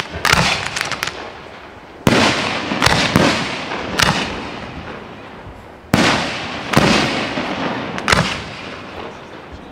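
Aerial firework shells bursting overhead: about seven sharp bangs, one every second or two, each trailing off in a long fading echo.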